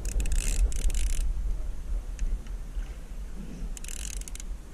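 Shimano Torium conventional reel being cranked against a fish on a bent jigging rod: a burst of fast clicking and whirring from the reel in the first second, and another shorter burst near the end, over a low wind rumble on the microphone.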